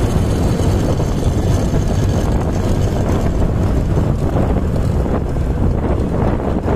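Steady rush of wind on the microphone mixed with the noise of a vehicle driving along a paved road.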